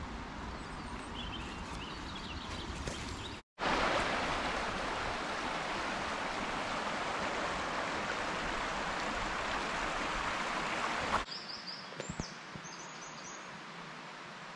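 Faint birdsong over a steady background. After an abrupt cut, a stream's rushing water runs evenly for about seven seconds and stops abruptly. Then comes a quieter stretch with a bird giving a few short repeated high calls.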